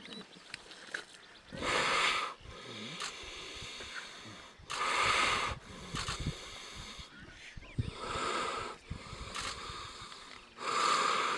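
Downed Cape buffalo gasping in loud, harsh, wheezing breaths, four times about three seconds apart, while a lioness clamps its muzzle: the laboured breathing of an animal being suffocated.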